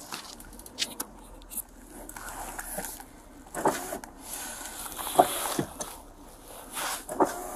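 Clothing rubbing and rustling against a chest-worn body camera, with scattered knocks and clicks as the wearer shifts in his seat. The loudest knock comes about five seconds in.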